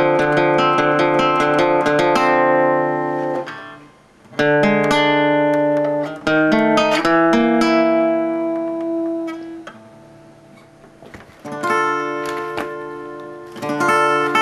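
Music soundtrack: plucked guitar playing ringing chords in short phrases, the notes left to ring out, with two brief lulls where the sound dies away before the playing resumes.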